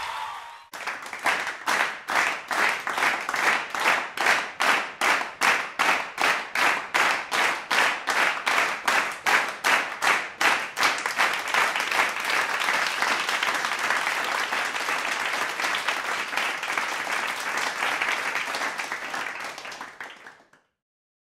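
A crowd clapping in unison, about three claps a second, then breaking into ordinary applause that stops suddenly near the end.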